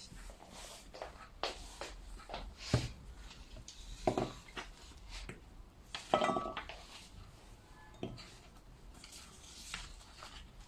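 Dishes and glassware being handled: a few separate knocks and clinks, the one about six seconds in ringing briefly like a glass or cup.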